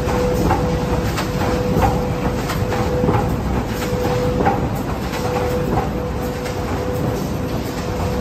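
Automatic corrugated-carton flexo printer slotter, rotary die-cutter and stacker line running in production. There is a steady mechanical rumble with a constant whine, and light knocks repeat at short, uneven intervals as board sheets feed through.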